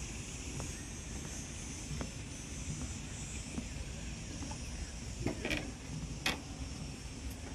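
Outdoor background by a pond: a steady low rumble and a faint high hiss, with a few light clicks and two sharper knocks about five and six seconds in.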